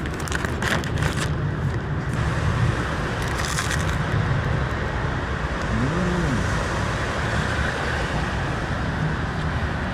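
Steady outdoor street noise of rain and road traffic: an even hiss over a low rumble. There are a few clicks in the first two seconds, and a short hum rises and falls about six seconds in.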